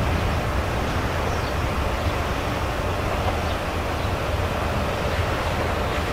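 Steady low rumble of a train in motion, an even noise without distinct clicks or changes.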